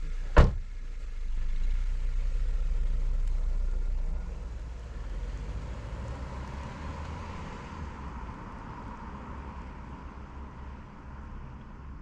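A car door slams shut about half a second in. The SUV's engine then runs as it pulls away, and the sound fades as the vehicle drives off.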